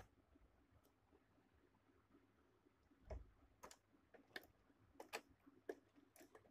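Near silence with several faint, irregular clicks and taps, mostly in the second half, from hands arranging fabric under a sewing machine's presser foot.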